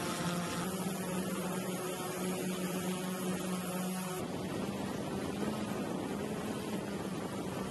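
Steady mechanical hum with a constant low tone over a hiss; its character shifts slightly about halfway through.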